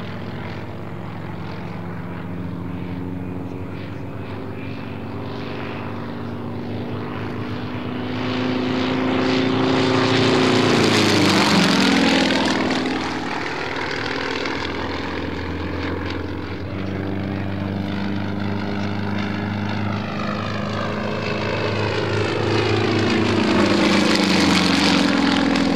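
Yak-52's nine-cylinder M-14P radial engine and propeller in an aerobatic display. The engine swells loud about ten seconds in and its pitch drops sharply as the plane passes. It builds loud again near the end as the plane makes a low pass.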